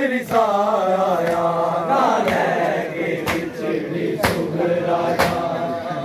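A crowd of men chanting a noha, a Muharram lament, together. From about two seconds in, sharp matam strikes of hands on bare chests land about once a second.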